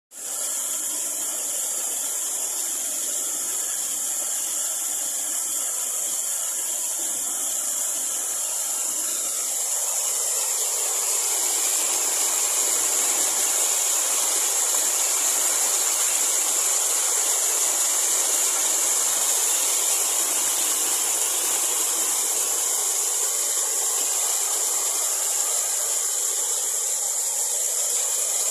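Waterfall: a steady rush of falling water that grows a little louder and fuller about ten seconds in.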